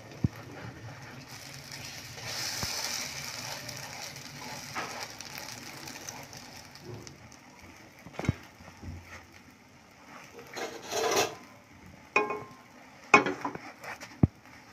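Onion and egg fritters sizzling faintly in oil in a nonstick pan, while a silicone spatula scrapes and knocks against the pan as they are flipped. The knocks come in the second half, with a longer scrape about eleven seconds in and several sharp taps near the end.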